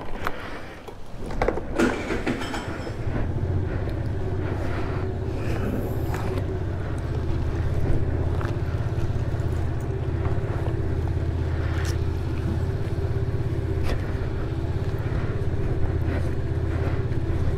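GY6 50cc scooter's single-cylinder four-stroke engine starting about two seconds in and then idling steadily, with a few handling noises near the start.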